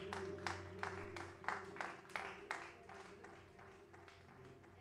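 A small audience clapping, the applause thinning out and dying away about three seconds in, over a faint low steady hum.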